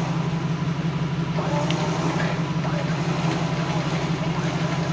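A vehicle engine running steadily at a constant speed, with an even low throb.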